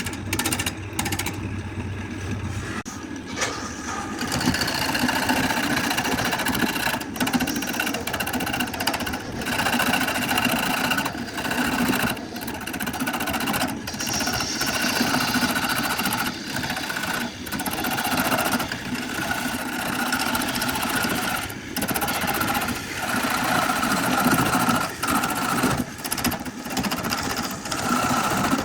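A power tool running as it works wood, with a steady mechanical motor noise. The sound is chopped by abrupt cuts every second or two.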